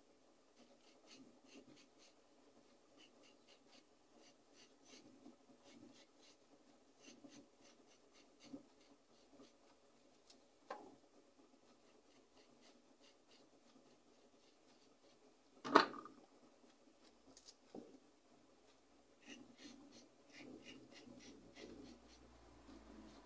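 A courgette's skin being scraped in many quick, light strokes. A sharp knock about two-thirds of the way through is the loudest sound.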